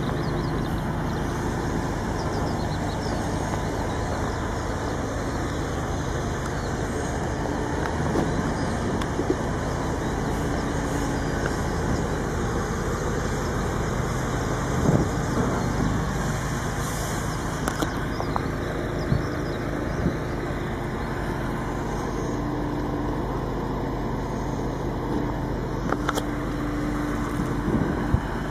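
Heavy vehicle engine running steadily, with a few short knocks.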